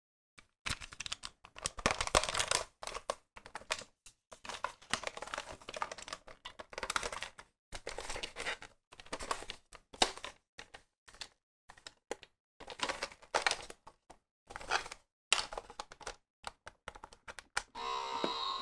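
Hard plastic parts of a DX Genesis Driver toy belt clicking, knocking and rattling in irregular bursts as it is handled and fitted together. Near the end the belt's electronic sound starts up as its light comes on.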